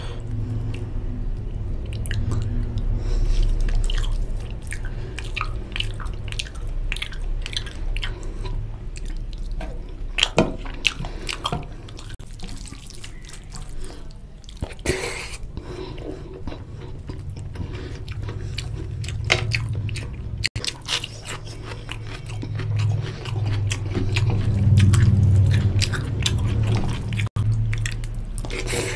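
Close-miked eating by hand: wet chewing and lip smacks over mouthfuls of oily mutton curry and rice, with squelching as fingers mix the curry into the rice. Many short wet smacks and clicks come in quick succession.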